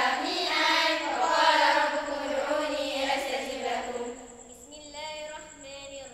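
Chorus of girls' voices chanting in unison, long held notes that turn quieter about four seconds in, then shorter recited phrases.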